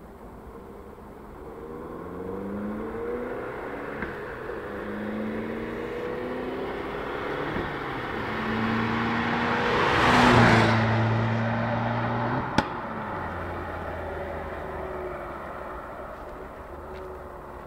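Fiat 500 Abarth's turbocharged 1.4 four-cylinder on its stock exhaust, accelerating through the gears: the engine note climbs three times, dropping back at each shift, and is loudest about ten seconds in as the car passes close. A sharp click follows a couple of seconds later, then a steady, lower engine note fading away.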